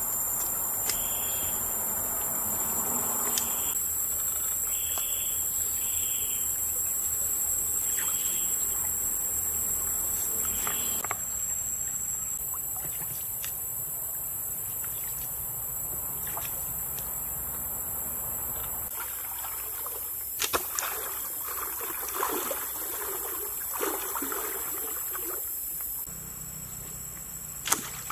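Feet wading through a shallow stream, the water sloshing irregularly, over a steady high-pitched drone of insects. A single sharp click comes near the end.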